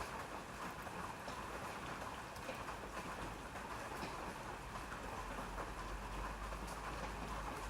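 Steady rain falling, an even patter with scattered individual drop ticks, over a low rumble that grows somewhat stronger about five seconds in.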